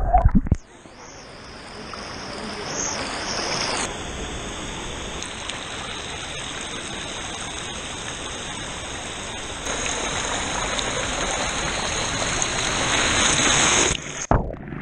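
Flowing and splashing water of a river and small waterfall, heard in a few short clips joined by sudden cuts. It is loudest near the end, where water pours close by.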